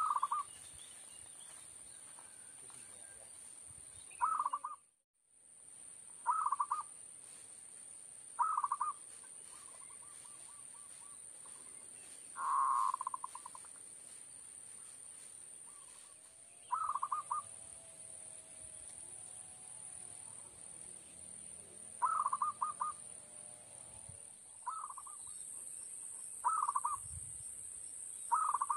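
Zebra dove (perkutut) decoy calls: about ten short trilled coos, repeated every two to four seconds, used to lure wild doves to the trap. A steady high-pitched tone runs underneath.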